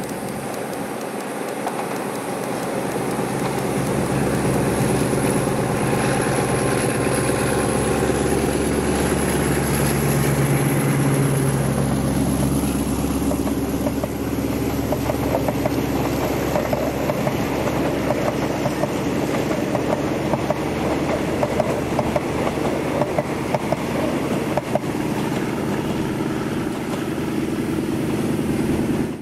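Alsthom diesel-electric locomotive of a passenger train approaching and passing close by, its engine drone swelling to its loudest about ten to twelve seconds in. Then the passenger coaches roll past with a rapid, rhythmic clatter of wheels over the rail joints.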